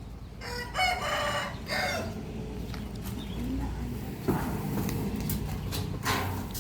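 A rooster crowing once, starting about half a second in and lasting about a second and a half.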